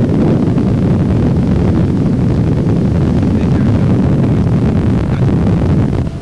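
Loud, steady rumble of a motorboat running at speed while towing a waterskier, with heavy wind buffeting on the microphone; the noise drops off sharply near the end.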